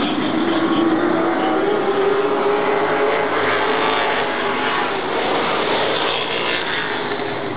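Stock cars racing on an oval track, several engines running loudly together as the pack goes by. One engine note climbs steadily in pitch over the first few seconds.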